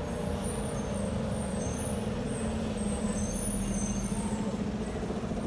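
Steady low drone of an idling vehicle engine, with street noise around it.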